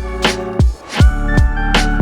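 Background music with a steady drum beat, bass and sustained notes, dropping out briefly just before the one-second mark.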